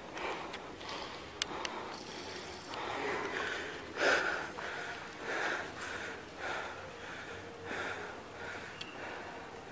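A person's heavy, rhythmic breathing, about one breath every 0.7 s. A single sharp click comes a little under a second and a half in.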